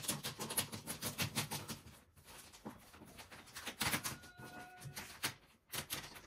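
Plastic courier mailer bag being slit with a small blade and ripped open by hand: crinkling and tearing plastic in quick irregular bursts, pausing for a moment about two seconds in, then tearing again.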